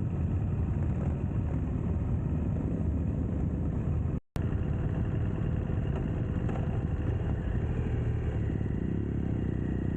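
Steady riding noise of a motorcycle on the move: the engine running under a heavy low rush of wind on the microphone, with the sound cutting out for an instant about four seconds in.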